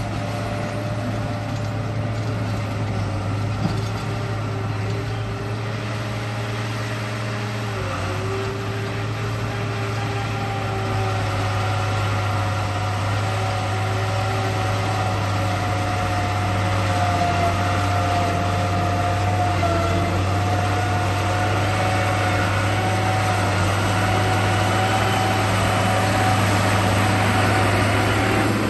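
Radio-controlled bulldozer running: a steady low hum with the whine of its drive motors and gears, which shifts in pitch as it works and dips briefly about eight seconds in.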